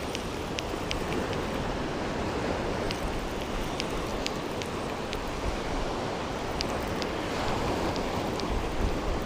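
Steady wash of ocean surf on the beach, with a few faint, scattered high ticks over it.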